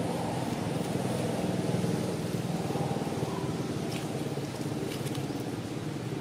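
An engine running steadily, with a few faint high clicks about four to five seconds in.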